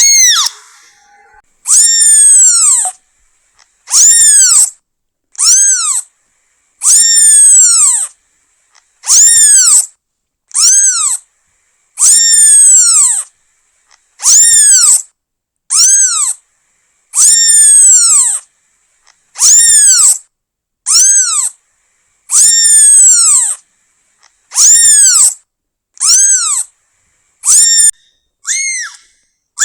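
Newborn kitten meowing repeatedly, calling for its mother: loud, high-pitched meows, each rising then falling in pitch, one about every one and a half to two seconds with short silences between.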